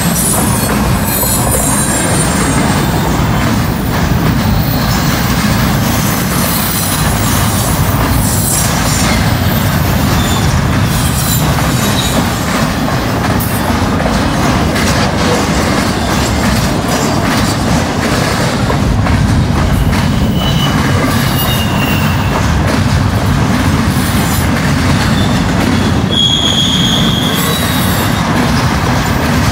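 Freight train cars rolling past at speed: a loud, steady rumble of steel wheels on rail with clickety-clack over the joints. Short high wheel squeals come about two-thirds of the way in and again near the end.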